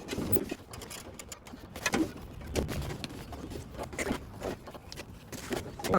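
Irregular knocks and rubbing as rubber window weatherstripping is pushed and worked into a Jeep door's window track, the loudest knocks about two seconds in and at the end.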